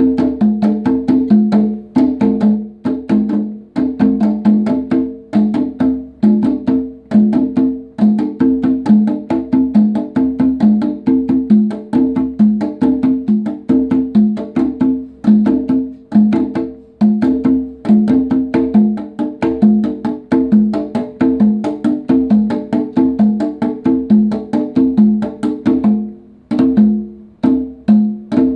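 Conga drums played by hand by three players in a fast, dense interlocking rhythm, with open tones ringing at several distinct pitches. There is a brief thinner passage a little before the end.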